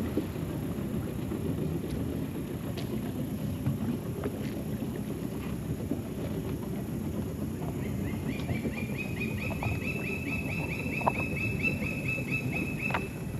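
A bird calls a short rising chirp over and over, about five times a second, starting about eight seconds in and stopping near the end, over a steady low rumble and a few light knocks.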